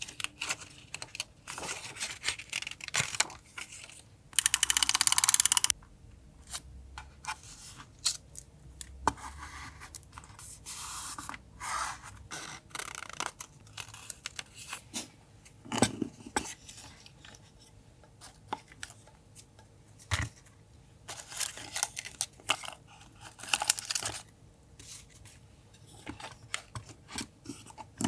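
Paper collage sounds: paper and stickers rustled, handled and torn, with many small clicks and taps. A loud stretch of tearing comes about four seconds in and lasts over a second.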